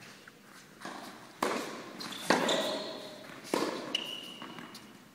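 Tennis ball struck by rackets and bouncing on an indoor court during a rally: three sharp hits about a second apart, the middle one loudest, each ringing on in the echo of the hall.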